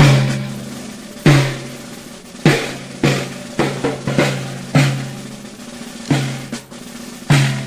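Rope-tensioned field drum beaten in a slow, irregular marching beat: single sharp strokes roughly every half second to a second, each leaving a low ringing tone.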